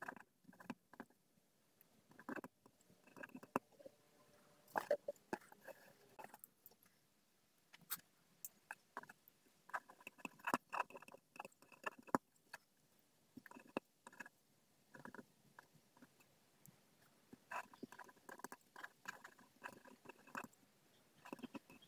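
Pen scratching on paper in short, faint bursts of strokes as words are handwritten, with brief pauses between words.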